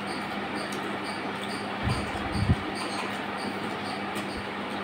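Eating with the fingers from steel plates: rice being mixed and picked up by hand, over a steady hiss with a low hum, and two dull low thumps about two seconds in, half a second apart.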